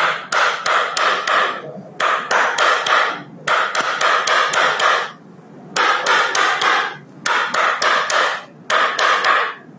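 Rapid repeated tapping, about six sharp strikes a second, in runs of one to one and a half seconds broken by short pauses.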